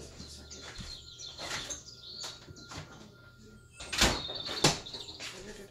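Kitchen cupboard and a bowl being handled: light knocks and rattles, then two sharp knocks about four seconds in, half a second apart.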